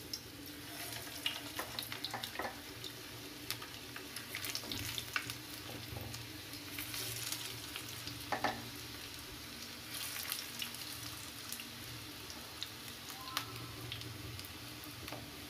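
Vegetable tikkis (grated bottle gourd and potato patties) shallow-frying in hot mustard oil on a low flame: a steady sizzle with frequent small pops and crackles, flaring as more patties are laid into the pan in the first half.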